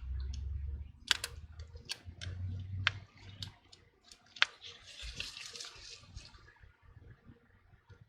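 Small sharp clicks and taps from a tool working against the phone's parts, with a short scraping hiss about five seconds in, as the adhesive under the display flex cable is worked free.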